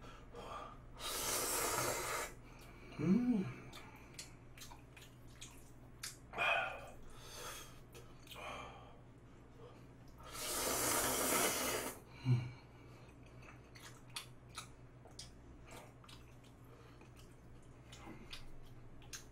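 A man slurping spicy stir-fried instant noodles, two long slurps about a second and ten seconds in, with small chewing clicks and a couple of short vocal noises between them.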